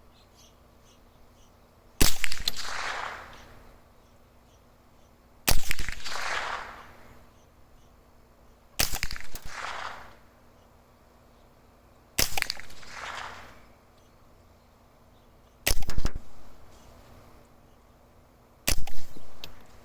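Suppressed .22 LR rifle shots from a Smith & Wesson M&P 15-22 semi-automatic: six sharp cracks about three to three and a half seconds apart, each trailing off over about a second, working through high-velocity, standard-velocity and subsonic ammunition.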